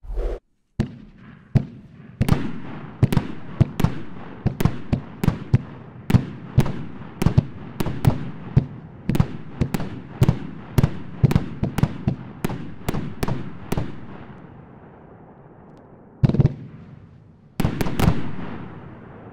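Air Strike 25-shot consumer firework cake firing a fast string of shots, a sharp bang about every half-second with a rush of noise trailing each. After a short lull, one more bang comes, then a final quick volley of three near the end.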